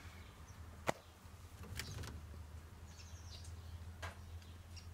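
A sharp click about a second in, then a few faint clicks and taps from hands on metal parts, over a low steady hum and faint bird chirps.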